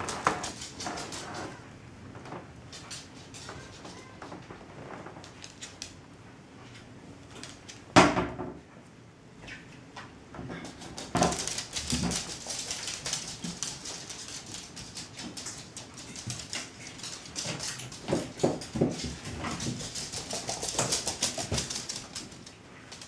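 Chinese crested dogs' claws clicking and skittering on a hardwood floor as several of them scurry about, with one loud thump about eight seconds in.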